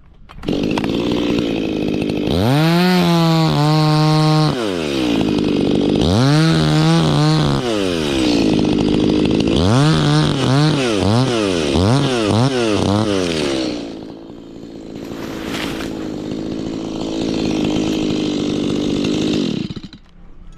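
A two-stroke Stihl chainsaw is run up to full speed twice, then blipped on and off the throttle several times in quick succession. It settles back to idle and cuts off near the end.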